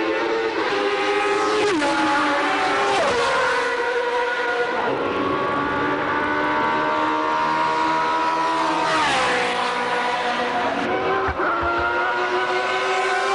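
High-revving 1990 Formula One car engines, several pitched tones climbing steadily and dropping sharply a few times.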